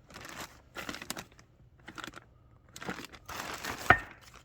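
Irregular crinkling and rustling as parts and their wrappings are handled, with small clicks and one sharp click just before the end.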